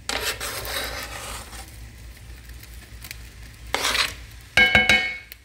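A metal utensil scrapes chopped onion off a plastic cutting board into a cast-iron skillet of raw ground beef, in two spells of rough scraping. Near the end come several quick ringing clanks as the utensil knocks against the skillet.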